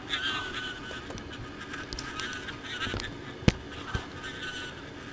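Propane-air torch flame burning inside a quartz tube: a steady rushing noise with a faint wavering high tone over it, and scattered small clicks and pops, the sharpest about three and a half seconds in.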